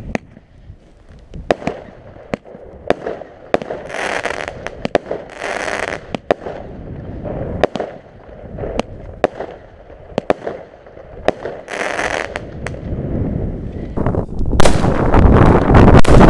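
Small consumer firework cake firing its shots: sharp pops and cracks come every second or so, with short hissing rushes as shots go up. In the last couple of seconds it turns much louder into a dense stretch of noise and pops.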